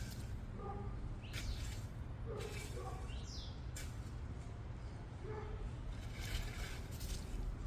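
Birds chirping outdoors, a few short sweeping calls, over a steady low rumble, with several brief scraping or rustling noises in between.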